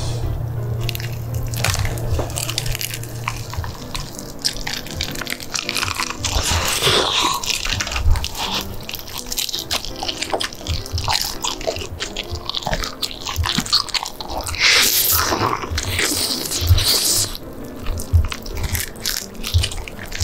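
Close-miked biting, crunching and chewing of crispy bhc Bburinkle fried chicken, a long irregular run of crunches and mouth sounds, over quiet background music.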